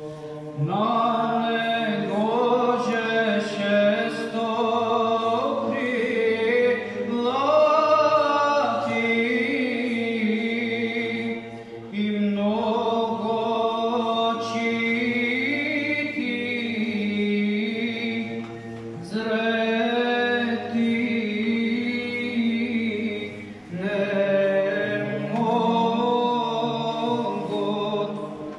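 Male Byzantine Orthodox choir chanting a cappella, the melody moving over a low held drone note, in phrases broken by short pauses.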